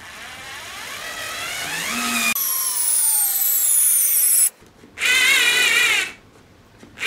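Bosch IXO 6th-generation 3.6 V cordless screwdriver whining as it drives a 3-inch screw into wood without a pre-drilled hole. Its pitch first rises, then falls, then comes in two short wavering runs with a stop between them: the small motor struggling under the load. The footage runs at 5x speed, so the whine is high.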